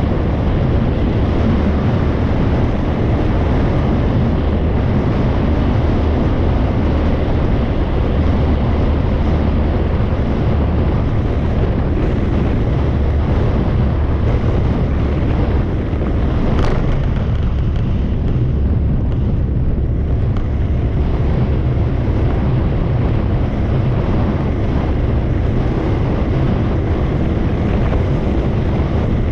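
Steady wind rush on the microphone of a camera riding on a moving motorbike, over the low rumble of the bike and its tyres on the road. A brief sharp, high sound comes about two-thirds of the way through.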